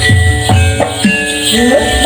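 Javanese gamelan music of the kind played for reog and gedruk dancing: drums beating a steady rhythm under ringing metal percussion tones, with jingling on top.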